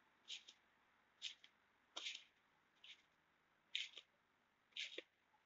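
Trampoline springs and mat creaking and rustling faintly with each bounce, in a steady rhythm of about one bounce a second.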